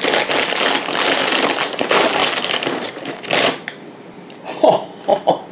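Plastic cereal bag liner crinkling and tearing as it is pulled open by hand, a dense crackle that stops after about three and a half seconds.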